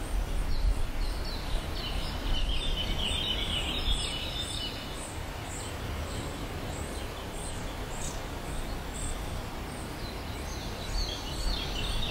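Outdoor nature ambience: an insect chirping evenly, about two or three chirps a second, with birds calling busily a few seconds in and again near the end, over a low rumble.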